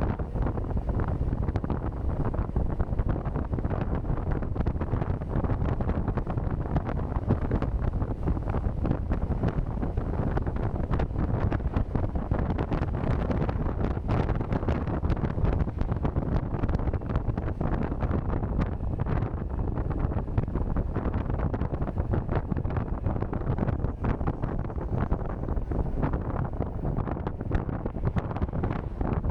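Hard wind buffeting the microphone: a dense, steady rushing noise, heaviest in the low end, with no let-up.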